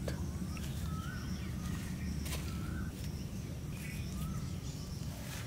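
Forest birds chirping, a few short separate notes, over a steady low rumble. Faint scratching as a stick digs into sandy soil.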